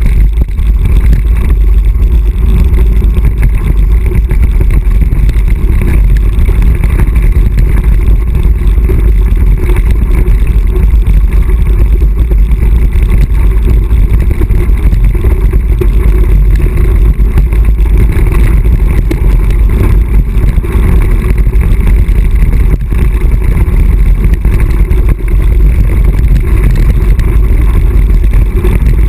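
Loud, steady wind rumble on the microphone of a camera riding down a mountain-bike descent, mixed with the rumble and rattle of the tyres rolling over a gravel forest track.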